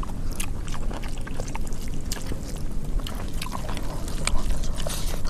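Wet eating sounds as hands mix and scoop rice with mutton curry on a banana leaf: scattered squelches and small clicks over a steady low background noise.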